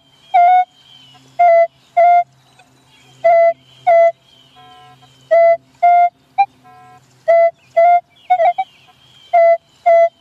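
Minelab E-Trac metal detector giving a repeatable mid-pitched target tone, short beeps in pairs about every two seconds as the coil sweeps back and forth over a shallow coin-sized target. It is a clean, solid signal. A faint steady hum runs between the beeps.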